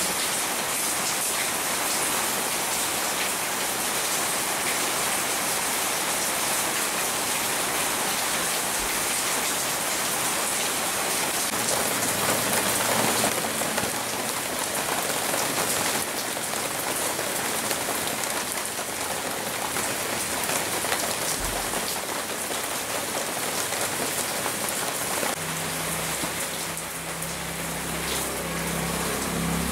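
Steady rain falling on broad leaves, with drops dripping from the foliage. Near the end a low steady hum comes in underneath.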